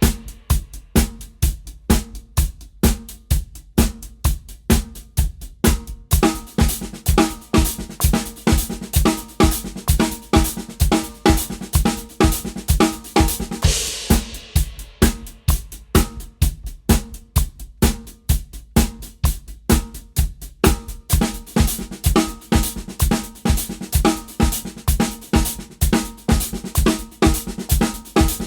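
Drum kit playing a steady groove built from single and inverted paradiddles in sixteenth notes, spread across bass drum, snare and hi-hat. A crash cymbal is struck about halfway through.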